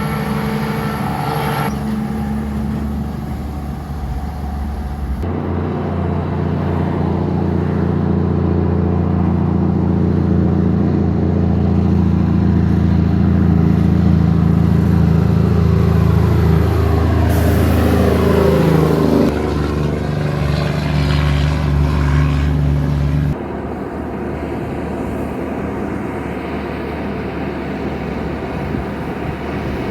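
Busy road traffic: heavy truck and car engines running steadily, with one vehicle passing close by about two-thirds of the way in. The sound changes abruptly twice.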